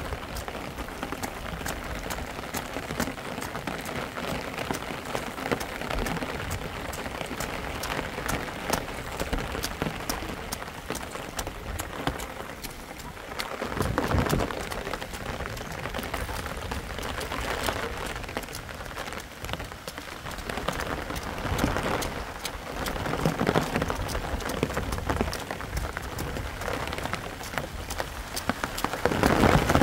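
Steady rain falling, with many sharp close drop ticks, swelling louder for a few moments about halfway and near the end.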